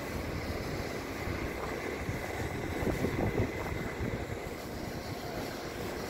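Wind buffeting the microphone: a low, irregular rumble that swells slightly about halfway through, with a faint steady high whine underneath.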